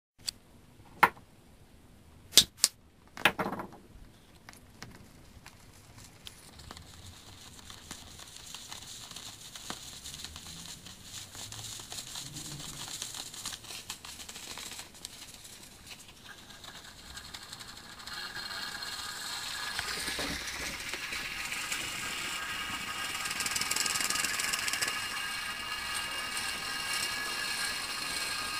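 Steam hissing from the jets of a homemade aeolipile (Hero's steam engine) as its flame-heated boiler comes up to heat, building slowly and growing louder in the second half, with several steady high tones in the hiss. A few sharp knocks in the first few seconds.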